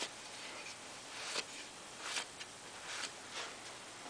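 A cloth rag wiping over a freshly filed steel axe head: a few short rubbing swishes, roughly one a second.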